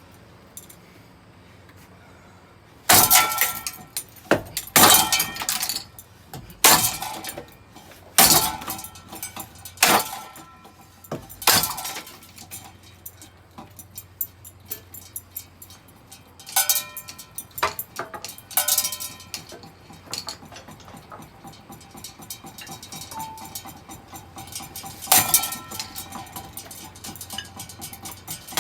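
A running ceiling fan being smashed: a string of hard irregular blows with breaking and clinking of glass and plastic parts, a few strikes ringing briefly like metal, over the steady hum of the fan motor.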